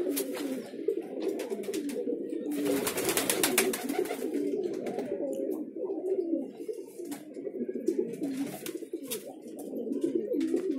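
A flock of domestic pigeons cooing together, many overlapping calls throughout. A short rustling burst with clicks comes about three seconds in.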